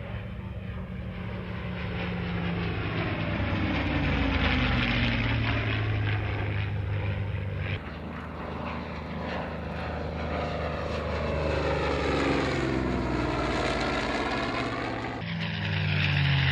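World War II fighter piston engines, a P-51 Mustang's Merlin V-12 and an F4U Corsair's radial, running steadily on low flybys, the tone sweeping up and down as each plane passes. The sound changes abruptly about 8 seconds in and again near the end.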